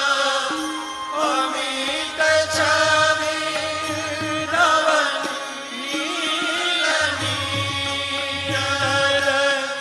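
Instrumental interlude of a Hindi devotional bhajan: a steady drone under a melody that bends and slides in pitch, with a low bass pulse coming and going.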